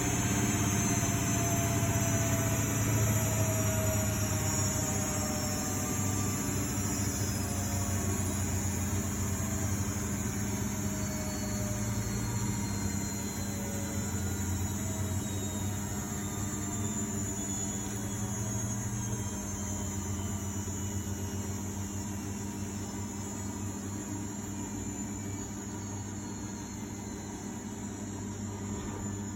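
Miele Novotronic W828 front-loading washing machine spinning down: the motor whine falls slowly in pitch and the sound fades gradually as the drum slows.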